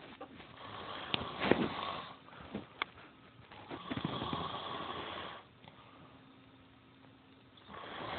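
Snoring: raspy drawn-out breaths about every four seconds, the first one broken by a few short clicks.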